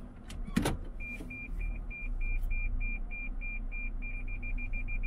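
A loud thump about half a second in, then a high electronic beep repeating about three times a second, speeding up to about six a second near the end before it stops, over a low rumble.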